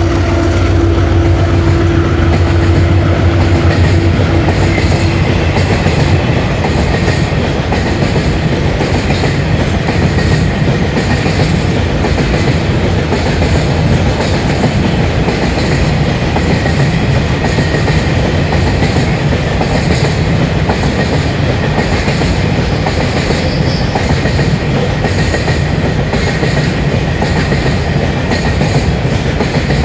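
Empty ballast hopper wagons of a freight train rolling past: a loud, steady rumble with the wheels clicking over rail joints.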